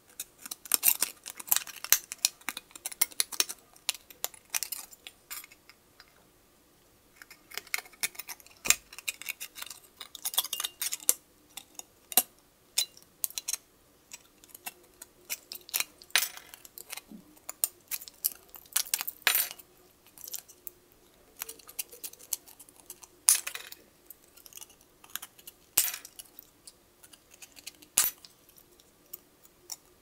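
Small scissors of a Victorinox Swiss Army knife snipping thin tin-can sheet metal: a run of sharp, irregular metallic snips and clicks, with a pause of about a second roughly a fifth of the way in.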